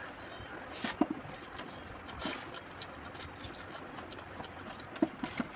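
Close-up eating sounds: fingers squishing and mixing rice on a steel plate, and wet chewing and lip smacks, as a string of soft, irregular clicks.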